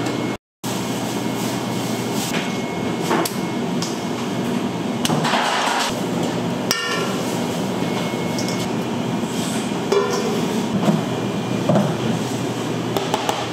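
Bakery kitchen work: a steady mechanical rumble with scattered knocks and clatter, and a short ringing clink about seven seconds in.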